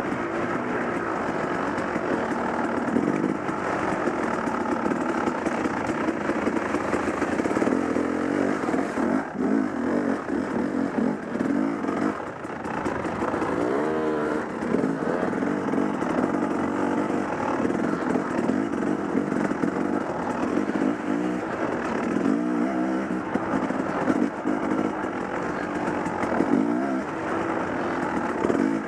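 Dirt bike engine heard on board while riding, running continuously with the revs rising and falling as the throttle opens and closes.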